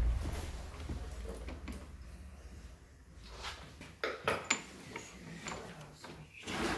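Light metallic clinks and taps as steel gears are handled and fitted onto a single-cylinder motorcycle engine's aluminium crankcase, with a couple of bright pings about four seconds in. A low thump comes right at the start.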